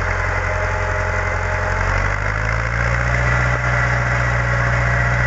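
Tractor engine running hard while pulling a plough, taken in flat out; its pitch rises slightly about two seconds in and then holds steady.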